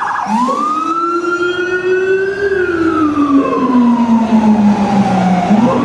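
Police-style siren wailing: one slow rise in pitch over about two seconds, then a long slow fall, starting to climb again near the end.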